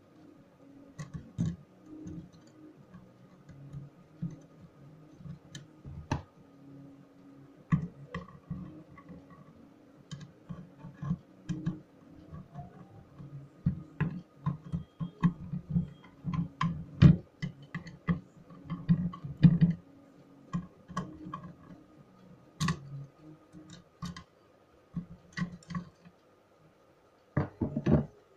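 Irregular small clicks, taps and scrapes of a screwdriver turning the screws that hold a hard disk's circuit board, with hands handling the drive's metal casing on a table.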